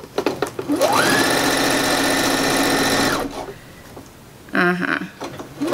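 Electric sewing machine: a few light clicks, then the motor speeds up and stitches steadily for about two seconds before stopping. A short burst of sound comes about a second before the end, and the motor starts to speed up again.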